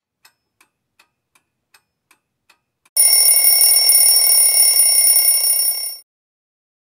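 Alarm clock ticking about two or three times a second, then ringing loudly for about three seconds before cutting off suddenly: a wake-up alarm.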